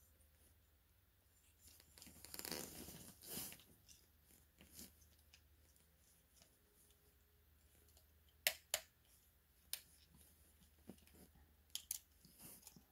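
Plastic transforming-robot toy being handled and its parts clicked into place. There is a short stretch of rustling and scraping early on, then a few sharp clicks: two close together about eight and a half seconds in and another pair near the end.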